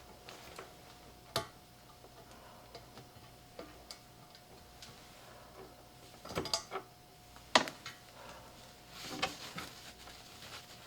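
Scattered light clicks and knocks of small parts and tools being handled, the sharpest about a second in and around six and seven and a half seconds, with some rustling near the end over a faint steady hum.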